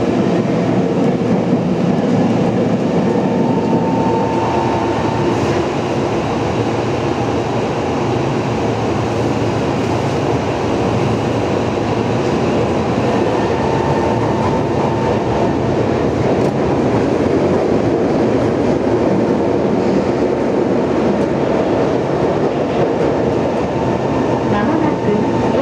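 Tokyo Metro 03 series chopper-controlled subway train running, heard from inside the car: a steady, dense rumble of wheels on rail. A faint thin tone comes and goes a few seconds in, around the middle and near the end.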